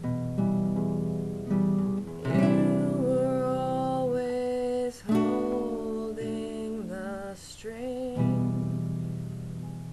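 Nylon-string classical guitar played in sustained chords, with a woman singing over it from about two seconds in until about eight seconds in.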